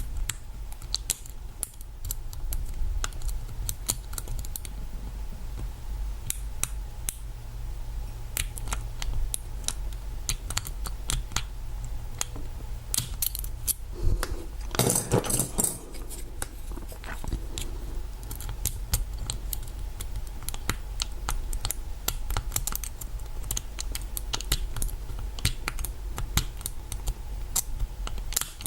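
Lock pick and tension wrench working the pin stack of a Master Lock lockout safety padlock during single-pin picking: a steady run of small metallic clicks and scrapes, with a denser, louder cluster about halfway through.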